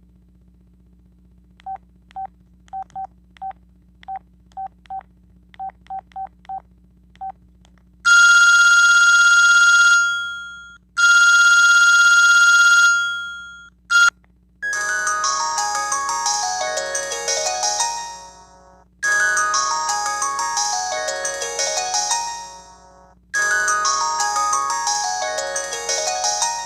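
Sanyo VI-2300 flip phone sounding through its small speaker. First comes a string of short beeps at one pitch, then two long, loud buzzing ring tones, then a ringtone melody whose falling phrase repeats about every four seconds.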